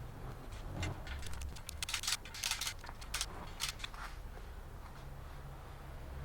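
Small metal parts clicking and scraping by hand, a quick run of short clicks between about one and four seconds in, as bolts or fasteners are fitted into a motorcycle wheel hub.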